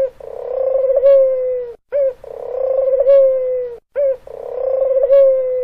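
Dove cooing: three identical calls about two seconds apart, each a short note followed by a longer, slightly falling coo.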